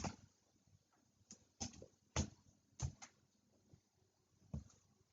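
Scattered short taps and rustles of a trading-card box and its wrapped packs being handled, seven or so light knocks a fraction of a second each with quiet between.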